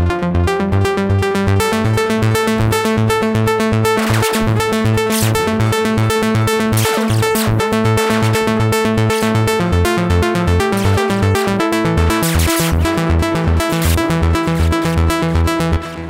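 TAL-J-8 software synthesizer, an emulation of the Roland Jupiter-8, playing its 'Easy Acid' preset: a pulsing, repeating electronic sequence with bright swells that come and go. The pattern stops near the end and leaves a fading echo tail.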